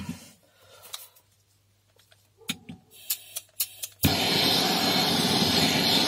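A few sharp clicks, then about four seconds in a handheld gas torch lights and burns with a loud, steady rushing hiss.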